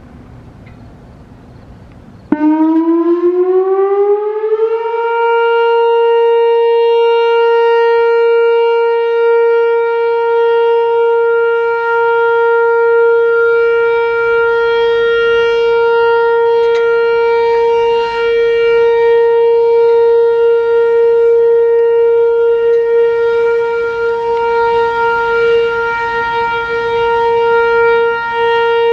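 Whelen WPS-4004 electronic outdoor warning siren sounding its one-minute steady alert tone for a test. After about two seconds of low background it starts abruptly, glides up in pitch for a couple of seconds, then holds one steady, loud tone.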